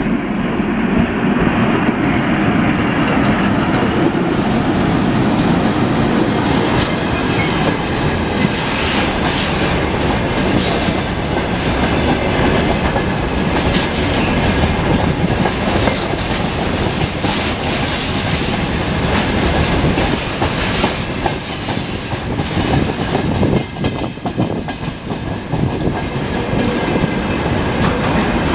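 Freight train passing close by: the VL80S electric locomotive goes past in the first few seconds, then loaded freight wagons roll by with a steady clickety-clack of wheels over the rail joints.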